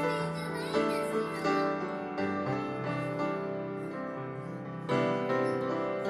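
Instrumental background music: a melody of clear, separate notes over held tones.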